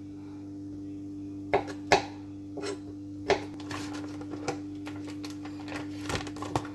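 A knife and plastic food packaging being handled on a plastic cutting board: scattered sharp knocks and clicks, the loudest two coming close together about a second and a half to two seconds in, over a steady low hum.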